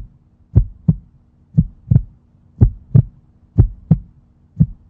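Heartbeat sound effect: a double thump repeating about once a second, five times, over a faint steady low hum.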